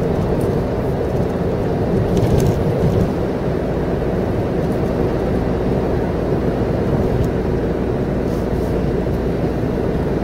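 Suzuki Jimny JB64's 658 cc turbocharged three-cylinder engine and tyre noise, heard from inside the cabin while driving steadily at town speed.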